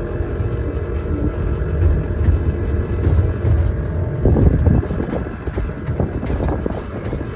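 Ride-on miniature electric train running along its track, heard from inside its cab: a steady low rumble, with a stretch of rattling clicks from about four seconds in.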